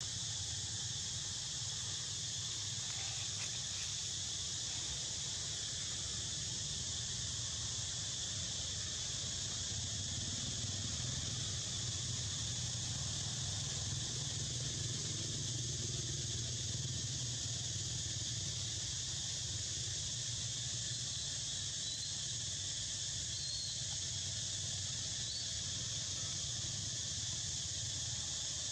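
Steady insect chorus outdoors: a constant high buzzing drone that doesn't change, over a low steady rumble.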